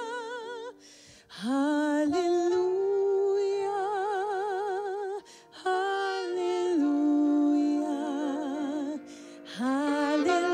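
Solo saxophone playing a slow melody of long held notes with a wide vibrato, scooping up into each new phrase, three phrases with short breaks between them, over a soft sustained accompaniment.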